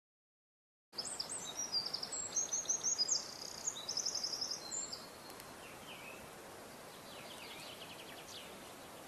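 Birds chirping outdoors over a faint steady hiss, starting about a second in. There is a busy run of rapid high chirps for a few seconds, then only fainter, scattered calls.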